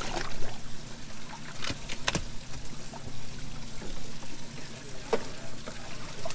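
Water trickling and splashing, broken by a few sharp knocks and clatters, the loudest about two seconds in and another about five seconds in.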